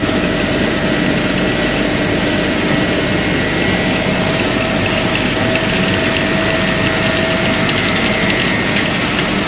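Wood pellet production line machinery running: a loud, steady mechanical din with a few constant hums over a dense rattle.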